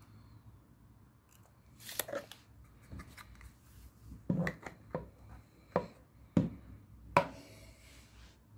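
A series of short, irregular clicks and knocks from objects being handled, about seven over several seconds, the last few the loudest.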